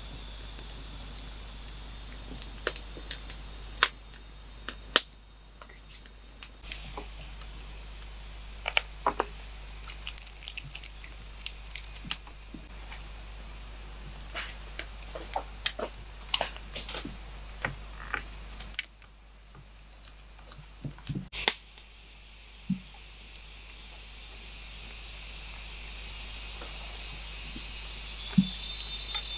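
Wood campfire crackling, with irregular sharp pops and snaps. Crickets chirp near the start and again near the end.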